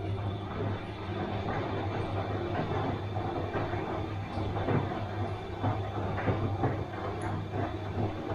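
Bosch washing machine running: a steady low motor hum under an irregular churning and swishing as the drum turns the wet load.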